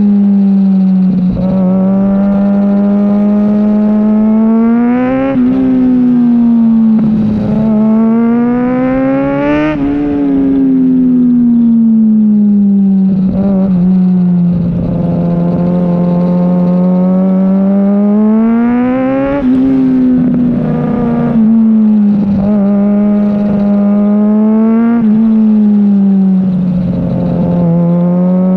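Kawasaki Ninja ZX-6R inline-four engine under way, its revs climbing and falling again and again as the throttle is opened and closed, with peaks about five, ten, nineteen and twenty-five seconds in.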